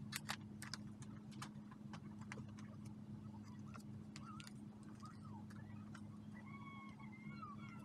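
Scissors snipping through paper in a run of short sharp clicks, about two or three a second, over a steady low hum. About halfway through the snipping stops and faint high chirps come in.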